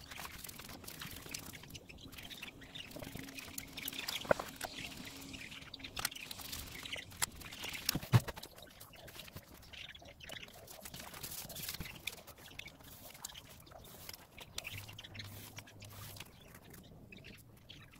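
Faint handling of thin craft foam sheets: scattered clicks and short scrapes as contact adhesive is spread and the sheets are pressed and trimmed.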